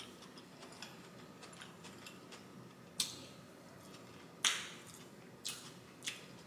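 Light clicks and taps of mussel shells and plastic seasoning containers being handled while eating, a few small ticks and then four sharper clicks about a second apart.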